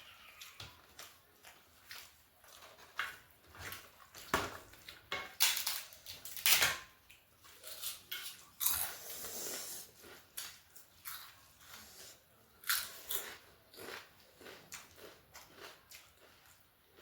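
Biting and chewing crunchy food, a run of irregular crunches and mouth clicks, loudest around the middle.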